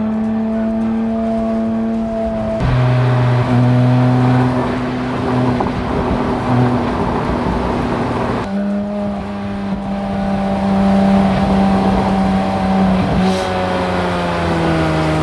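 Porsche 718 Spyder RS's naturally aspirated 4.0-litre flat-six running at steady part throttle while the car drives. The engine note jumps abruptly to a new pitch three times and sinks gently near the end.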